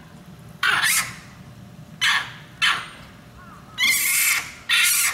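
A run of loud, harsh animal calls: five short calls, the longest about four seconds in.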